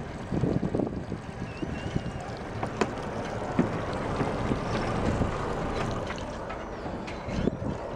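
Yanmar FX24 boat's inboard diesel engine running, with wind buffeting the microphone.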